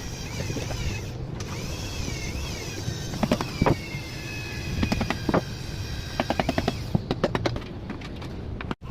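Bursts of rapid mechanical clicking over a wavering high-pitched whine.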